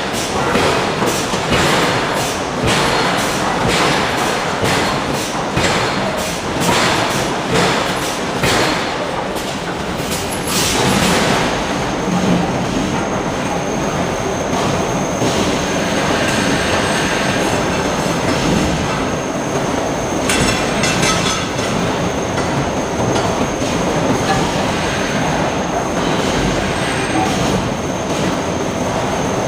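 Hydraulic forging hammer striking hot steel in a rapid run of blows, stopping about ten seconds in. After that there is steady forge machinery noise with a thin high whine.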